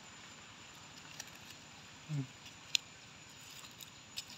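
Fingers scratching and pressing into dry, crumbly soil and leaf litter while digging for hed phao mushrooms, giving a few small sharp clicks and crackles, the sharpest a little under three seconds in. A brief low murmur sounds about two seconds in.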